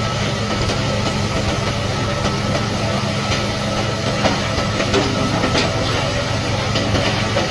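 Heavy construction machine's engine running steadily, with a few short knocks about halfway through.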